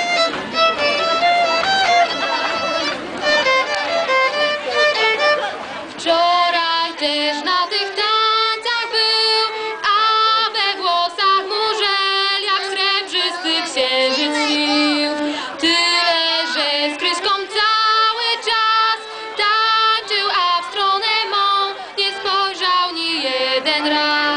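Live music: a violin plays a quick melody, and about six seconds in a girl's voice starts singing through a microphone with the violin alongside.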